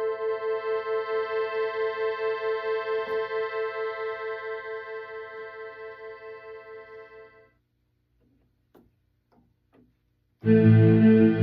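Sequential Circuits Prophet 600 analog polyphonic synthesizer playing a held chord that pulses about four times a second and fades away about two-thirds of the way through. A few faint clicks follow, then a louder, bass-heavy sustained patch comes in near the end. This is the synth's sound test after its overhaul.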